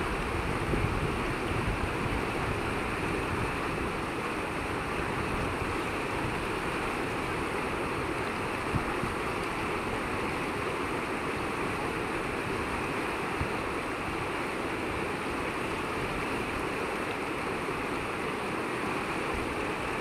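Fast river rapids rushing over rocks, a steady, unbroken sound of white water.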